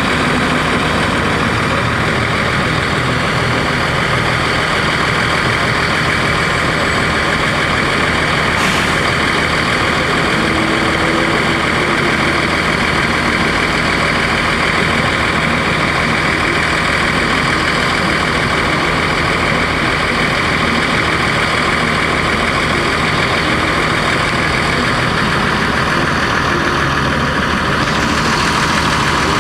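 Cummins ISC inline-six diesel engine of a 2002 Blue Bird CS transit bus running steadily, with a constant hiss over the engine hum.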